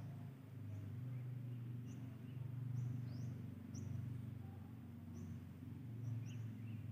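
Small birds giving short, high chirps, about a dozen scattered irregularly, over a steady low rumble.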